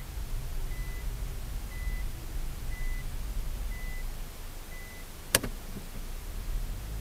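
A car's reverse-gear warning beeper sounding inside the cabin, a short high beep about once a second (about five times) while the car backs up, over the low rumble of the engine and tyres. The beeping stops a little before a single sharp click near the end.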